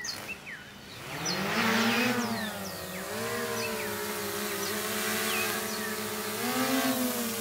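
Small quadcopter drone's propellers spinning up about a second in as it lifts off the lawn, then hovering with a steady buzz whose pitch wavers slightly as the motors adjust.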